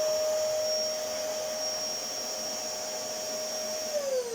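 Vax Power 6 vacuum cleaner running with a steady whine, then switched off near the end, its motor falling in pitch as it spins down.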